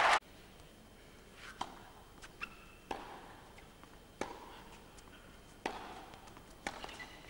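Crowd applause cuts off at the very start. Then tennis balls are struck and bounce on an indoor carpet court: sharp pops every second or so through a rally, with a couple of short squeaks over a quiet hall.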